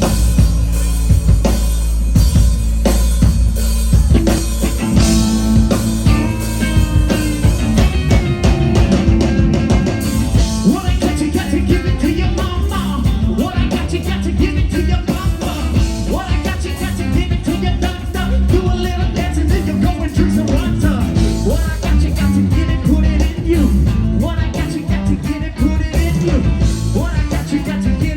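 Live rock band playing: drum kit, electric guitar and bass guitar at a steady beat, with a lead singer coming in partway through.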